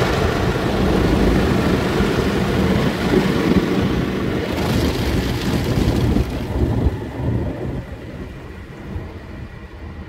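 WashTec automatic car wash spraying water over a car, heard from inside the cabin: a loud, steady rush and rumble of water on the glass and body. It fades down from about seven seconds in.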